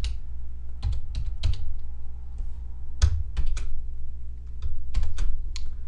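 Computer keyboard keys clicking as text is typed, in short uneven clusters of keystrokes with pauses between, over a steady low hum.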